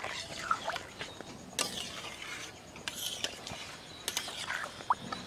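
Metal spoon stirring and scraping against a metal pan of boiled masoor lentils, with irregular scrapes and clinks.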